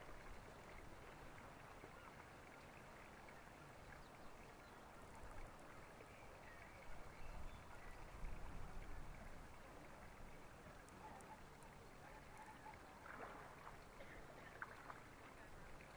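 Near silence: faint open-air ambience with some low rumbles, and a few faint bird calls near the end.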